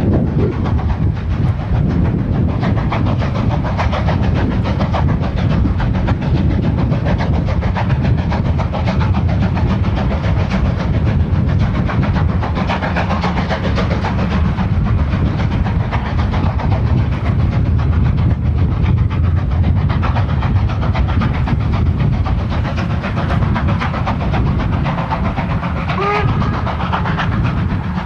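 Steam locomotive hauling a passenger train under heavy steam, its exhaust beats running fast and continuous over the rumble of the train. There is a brief high tone about 26 seconds in.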